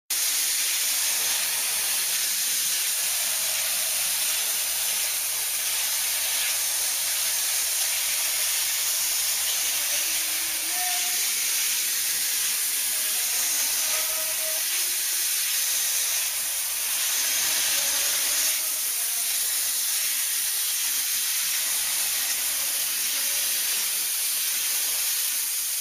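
Flip-top cap closing machine running with a steady high hiss.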